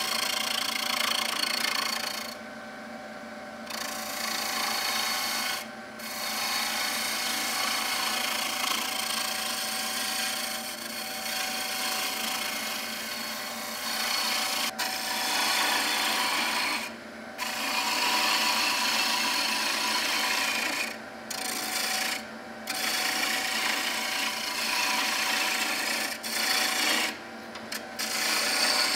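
A turning tool cutting a spinning spalted beech spindle on a Record Power wood lathe: a steady hiss of shavings over the lathe's motor hum. The cutting breaks off for a moment several times, about three seconds in for longest, as the tool lifts from the wood, while the motor hum carries on.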